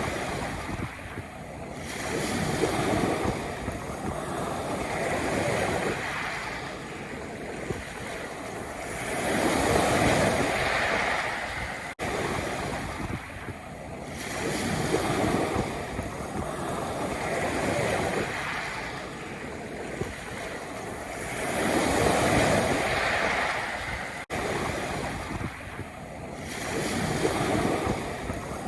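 Sea waves breaking and washing over a pebble beach, the surf swelling and ebbing every few seconds. There is a brief drop in sound about 12 and 24 seconds in.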